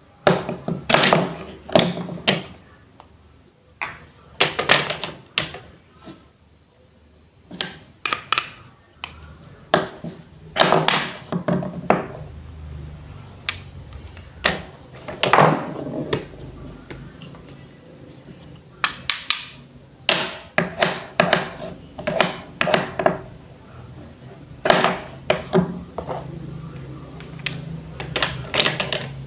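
Wooden toy fruits and vegetables being cut apart with a toy knife: clusters of quick clicks and knocks every few seconds.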